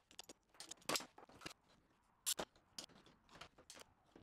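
Woodworking clamps clicking and clacking as they are handled and tightened on a workpiece: a series of irregular sharp clicks and knocks.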